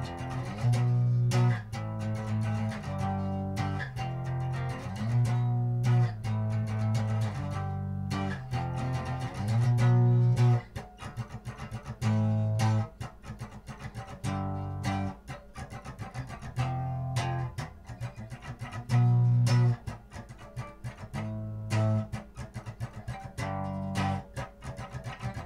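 Instrumental guitar music with a strong bass guitar line, the channel's original intro theme; the bass drops out for short stretches a few times and comes back in.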